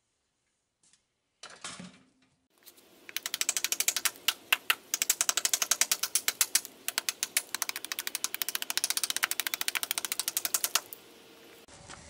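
A fast, even string of sharp wooden knocks, about a dozen a second, that stops suddenly near the end: a blade chopping and hewing a split log into a rough plank on a chopping stump.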